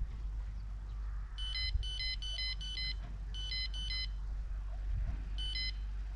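Electronic beeping: a quick run of about eight high beeps of changing pitch over about three seconds, then two more near the end, over a low steady rumble.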